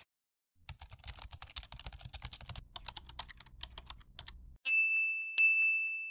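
Keyboard-typing sound effect: a fast run of key clicks for about four seconds, then two bright dings a little under a second apart.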